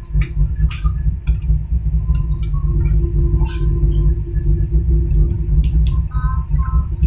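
Airliner cabin noise while taxiing after landing: a steady low rumble from the idling jet engines and the wheels on the taxiway, with a steady hum and a few light clicks.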